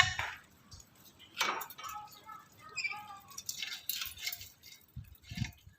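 Black-capped lory giving a scattering of short, quiet calls and chatter, with one harsh note about a second and a half in and a few brief pitched notes after it.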